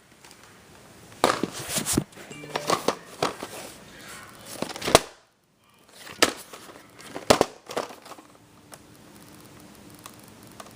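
Plastic VHS tape case being handled, with crinkling and clattering in several short bursts. The sound cuts out completely for about half a second around the middle.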